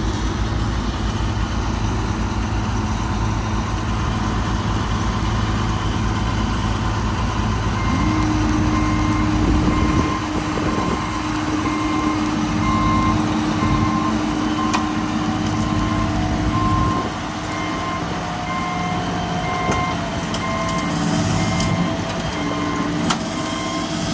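Heavy diesel engine running steadily as machines move a lifted combine. From about a third of the way in, a backup alarm beeps about once a second.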